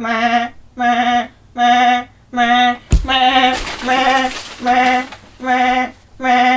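A woman's voice imitating an alarm clock, sounding the same held note over and over, about eight times at a little over one a second. A sharp knock comes about three seconds in.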